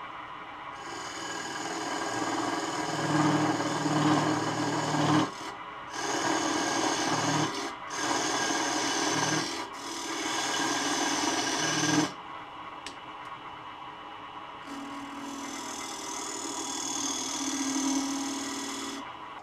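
Square carbide turning tool scraping into a spinning wooden disc on a Laguna Revo 12/16 wood lathe, in four cuts of one to three seconds each, then lighter cutting. Under it runs the lathe's unusual whir, which comes from the rear spindle bearing not being held firmly in place while the spindle's black handle is off.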